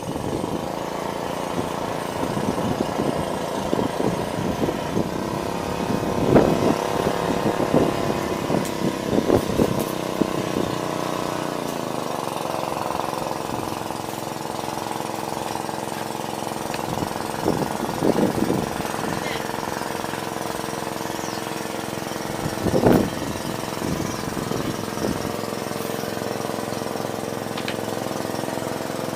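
A small engine running steadily, its pitch dropping slightly about twelve seconds in, with a few short, louder bursts of noise over it.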